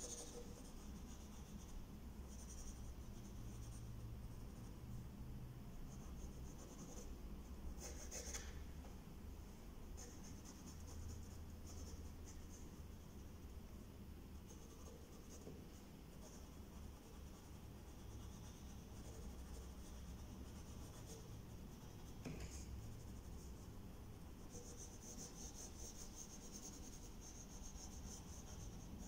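Pencil scratching on paper as a portrait is sketched, faint, in stretches of strokes with short pauses, over a low steady hum. A short light tap sounds about eight seconds in.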